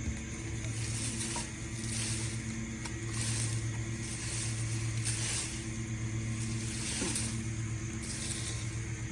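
An engine running steadily at idle, with a hiss over it that swells and fades about once a second.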